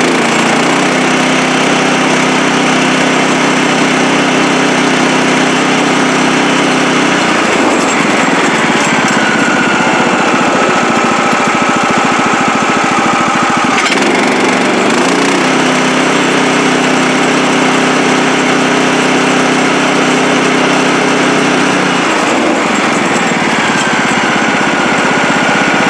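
Kohler Command PRO engine on a Woodland Mills band sawmill running steadily. Twice, as the handle is worked, its low hum gives way to a higher whine for several seconds, then settles back.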